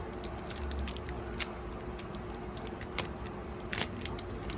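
Foil trading-card booster pack wrapper being slowly opened by hand: small crinkles and a few sharp clicks, over a faint steady hum.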